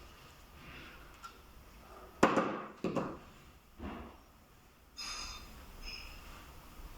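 Insulated cable being trimmed with cutters: two sharp snips a little over two seconds in, a softer one about a second later, then light metallic clinks with a short ringing.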